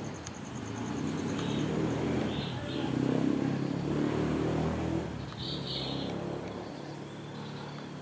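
A motor vehicle passing, its engine rumble swelling to its loudest about three seconds in and then fading, with a few short high bird chirps over it.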